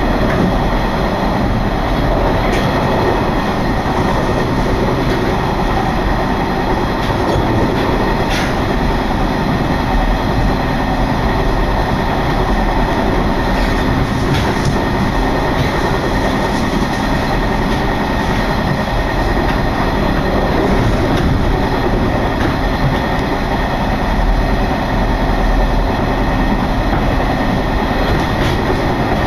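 Train running at speed: steady wheel and rail noise mixed with wind rushing past, and a few faint clicks of the wheels over rail joints.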